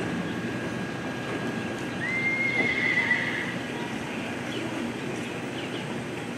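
A horse whinnying once: a high call of about a second and a half, starting about two seconds in and wavering toward its end.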